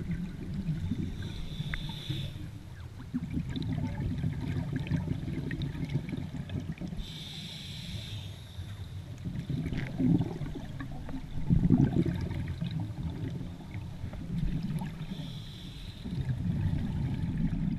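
Scuba diver breathing through a regulator underwater: a hiss on each inhalation, three times several seconds apart, between rumbling surges of exhaled bubbles.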